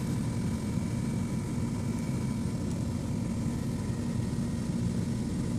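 Split air-conditioner outdoor unit running with a steady hum from its compressor and condenser fan, pumping the refrigerant back into the condenser while the service valve is closed.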